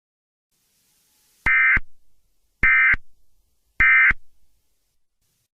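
Emergency Alert System end-of-message signal: three short bursts of SAME digital data tones, a little over a second apart, marking the end of the alert.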